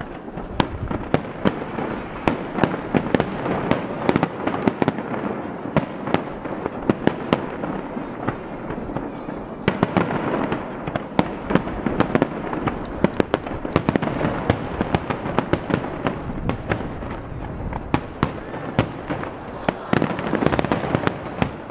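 Aerial firework shells bursting in rapid succession: a dense, unbroken string of sharp bangs and pops.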